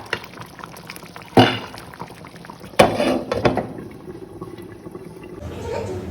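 Chicken curry bubbling and sizzling in a pot as it is stirred, with two loud clatters of the stirring spoon against the pot about one and a half and three seconds in.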